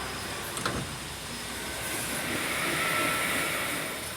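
Passenger lift doors and machinery running: a click under a second in, then a whooshing hum that swells through the middle and eases off.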